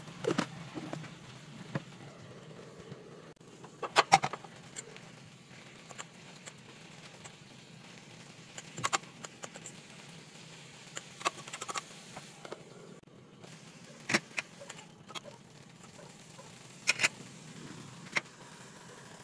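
A fork clinking and scraping against a frying pan while stirring water spinach: sharp clinks every few seconds, the loudest a quick cluster about four seconds in, over a faint steady background.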